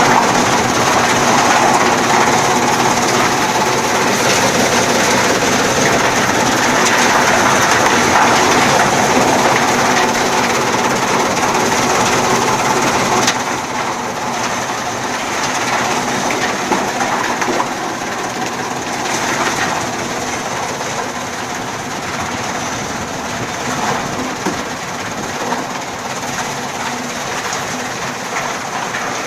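Chaff cutter machine running loudly and steadily with a rhythmic mechanical clatter. It becomes somewhat quieter about halfway through.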